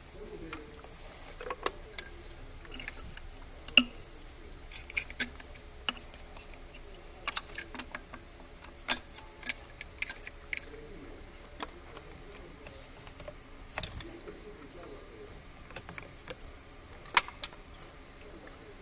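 Irregular sharp clicks and taps of hands handling coolant hoses, electrical connectors and the plastic water pump and thermostat housing on an engine, with the loudest knocks about 4, 9 and 17 seconds in.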